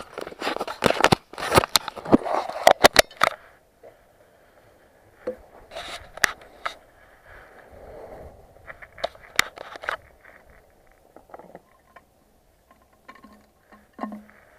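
Rubbing and a quick run of sharp knocks from a hand handling the microphone, followed by scattered plastic clicks and scrapes as hands work at the fuel tank cap of a Stihl FS 55 brush cutter before fuelling. The engine is not running.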